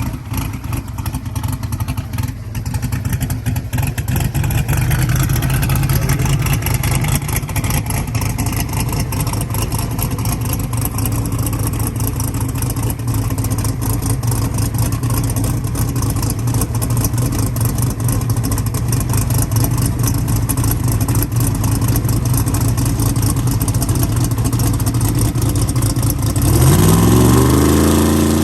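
A drag-race engine idling steadily with a choppy rumble, then revving up sharply near the end and holding at a higher pitch.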